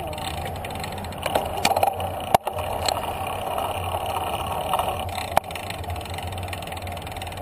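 Bicycles rolling slowly, with a handful of sharp clicks and rattles from the bike, over a steady rumble of road traffic.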